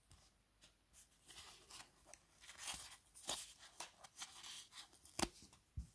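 Small paper sticker sheet rustling and crinkling between the fingers as a sticker is peeled off its backing, with a few sharp little clicks, the loudest near the end.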